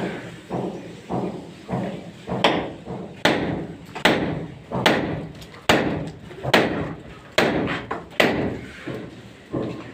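Repeated hammer blows, about a dozen struck at a steady pace of a little over one a second, each dying away quickly.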